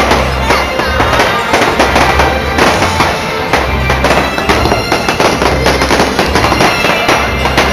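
Fireworks bursting and crackling in quick succession over loud show music with a pulsing bass line.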